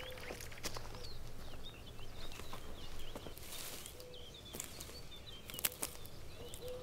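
Small birds chirping over a quiet rural outdoor background, with scattered footsteps and light clicks.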